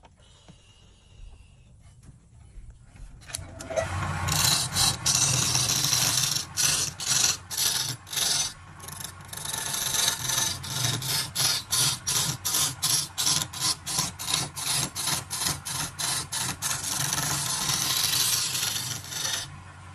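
Lathe gouge cutting into a spinning log: a loud scraping hiss of wood being peeled into shavings starts a few seconds in, broken into quick pulses with brief gaps as the tool is worked along, over the low hum of the lathe.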